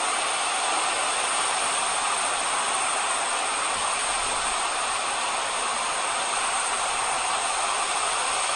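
Steady, unbroken hiss of heavy rain during a flash flood.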